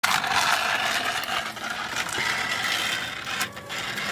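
Electric mobility shopping cart driving over asphalt: a steady mechanical whir of its motor and gears with rattling, briefly dropping away about three and a half seconds in.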